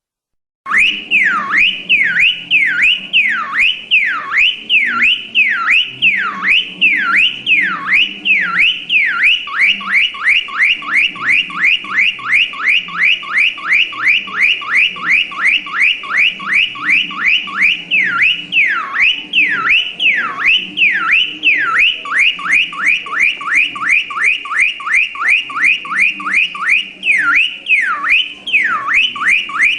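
Electronic car alarm siren starting suddenly and cycling through its tones. Falling wails come about one and a half a second, then a fast warble of about five sweeps a second, then the slow wails again.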